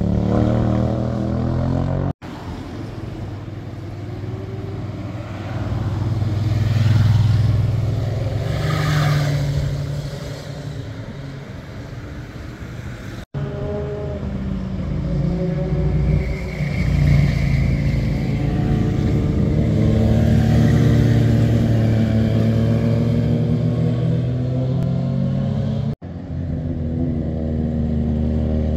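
Motorcycle engines passing one after another through a hairpin bend, their pitch rising and falling as the riders ease off and accelerate out of the curve. Three abrupt cuts break the sound into separate passes.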